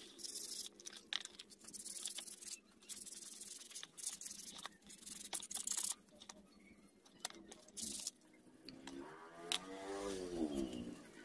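Steel scissor jack being washed by hand in a plastic basin of soapy water: metal clinking and scraping against the basin, water sloshing, and a wire brush scrubbing. A pitched whine that falls and rises comes in near the end.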